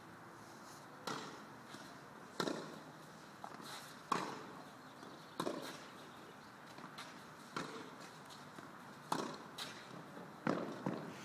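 Tennis rally: a ball struck back and forth by rackets, a sharp hit about every one and a half seconds, seven in all, with fainter knocks between.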